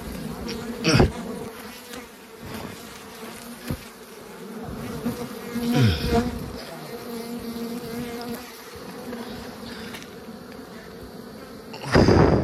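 Wild honeybees buzzing in a steady swarm around a freshly opened nest. About six seconds in, a single bee passes close and its buzz drops in pitch. Near the end there is a loud, brief burst of noise.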